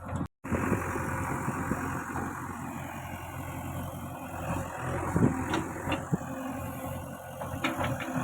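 Heavy machine's engine running steadily, with a few short knocks in the second half. The sound drops out for a moment near the start.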